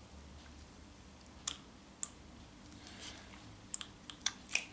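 Light, scattered clicks and taps of a plastic cup and mixing stick being handled as catalyst is added to polyester resin, two single clicks early and a quicker run of them near the end.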